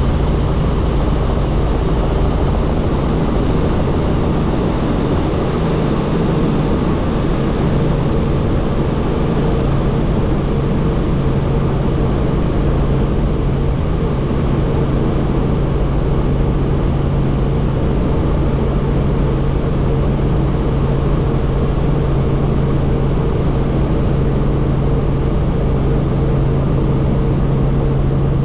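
Helicopter in flight: the rotor and turbine engine drone steadily and loudly, a constant low hum under an even rushing noise.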